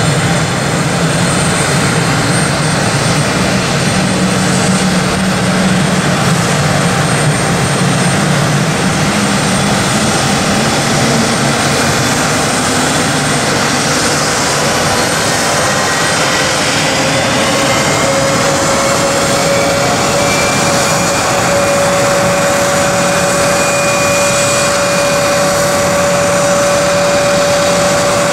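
Embraer ERJ-175 jet on the ramp with a loud, steady jet noise. About halfway through, a whine rises in pitch for several seconds and then holds steady: one of its General Electric CF34-8E turbofans spooling up during engine start.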